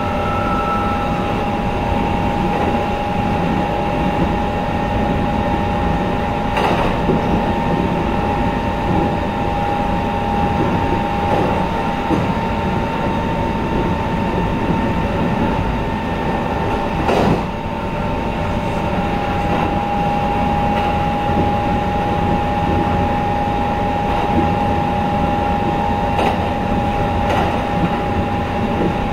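Kintetsu 23000 series Ise-Shima Liner limited-express train running at steady speed: an even rumble of wheels on rail under a constant hum, with a few sharp clacks as the wheels pass rail joints or points.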